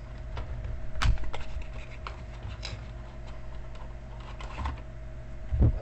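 Scattered light clicks and taps, with one sharper click about a second in and a low thump near the end, over a steady electrical hum.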